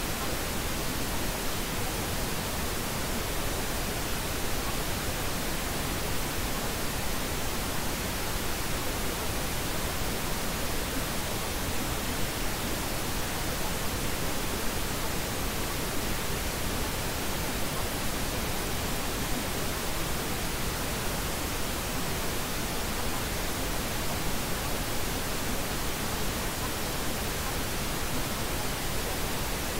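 Steady, even hiss of pink noise, the masking sound of a subliminal affirmation track, with no change in level or texture.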